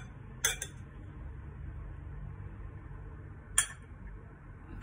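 A metal spoon clinks against a ceramic bowl twice, about half a second in and again about three and a half seconds in, over a faint steady low hum.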